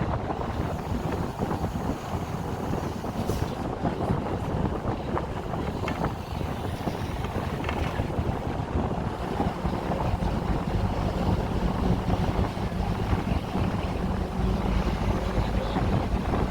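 Wind buffeting the microphone over outdoor street noise, with a steady engine hum coming in about halfway through.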